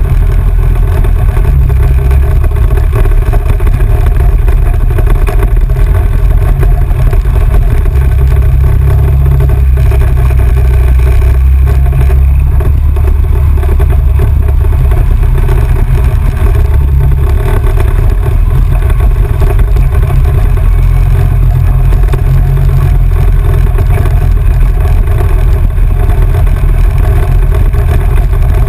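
Off-road vehicle engine running steadily while driving a dirt trail, under heavy low wind noise on the microphone.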